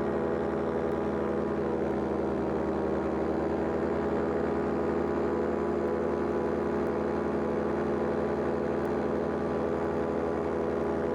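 Powered paraglider's engine and propeller running steadily at cruising power, a continuous even drone.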